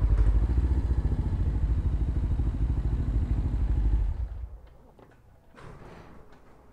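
Suzuki GS500E's parallel-twin engine with a Leo Vince exhaust running with an even, rapid pulse, then dying away about four seconds in as it is shut off. A faint clatter follows.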